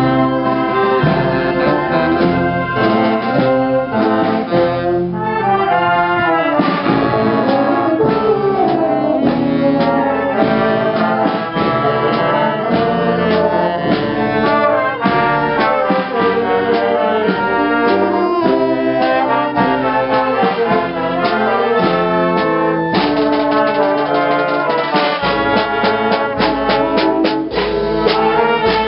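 A brass marching band playing a tune as it marches, with trumpets, trombones and a tuba carrying the melody over drums. The drum strokes stand out more near the end.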